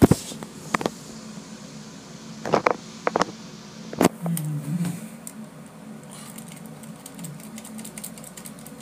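Elevator car running with a steady low hum, with scattered clicks and knocks and a sharp knock about four seconds in.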